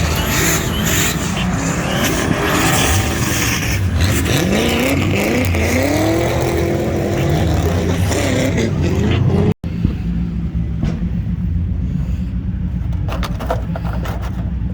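Drift car engine running hard, its pitch rising and falling as it revs up and down, over a steady loud engine drone. A brief dropout comes about two-thirds of the way in, after which the engine noise continues more thinly.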